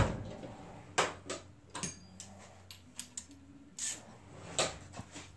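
Light clicks and knocks of metal gearbox parts and hand tools being handled on a workbench, about eight at uneven spacing, the loudest a knock right at the start.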